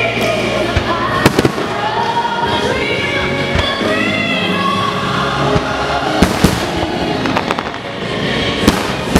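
Aerial fireworks shells bursting with sharp bangs, loudest about a second in and again around six seconds, over continuous music accompanying the display.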